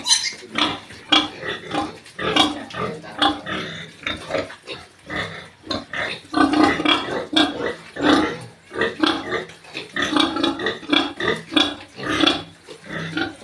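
Pigs calling with a rapid string of short, loud grunts and squeals, one after another throughout.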